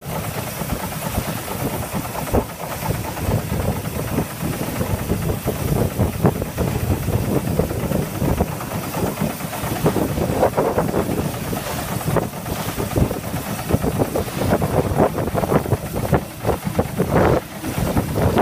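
A boat engine running steadily.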